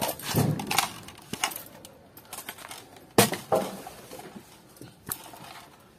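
Handling noises: a few separate knocks and clicks with faint rustling between them, the loudest a sharp click about three seconds in.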